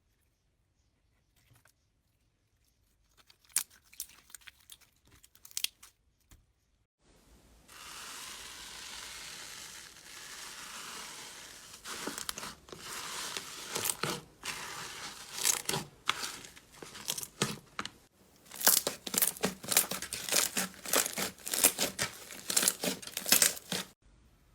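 Slime being squeezed and poked by hand, making crackling, crinkling pops: a few soft clicks at first, a steady hiss for a few seconds, then a long run of dense crackles.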